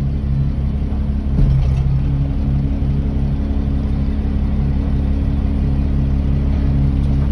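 Dump truck's diesel engine running steadily with the power takeoff engaged, driving the hydraulic pump that raises the dump box, with a short thump about a second and a half in.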